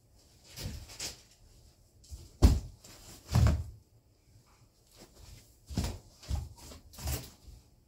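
A string of about seven irregular knocks and clunks, the loudest a sharp knock about two and a half seconds in.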